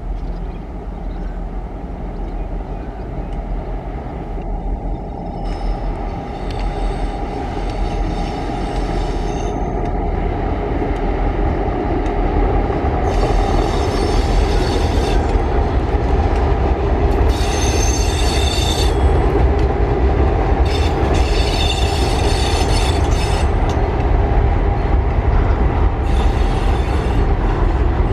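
Empty coal train of diesel locomotives and hopper wagons passing close by. The low rumble of the train grows steadily louder as it nears. The wagon wheels squeal high-pitched in several spells a few seconds apart as the wagons roll past.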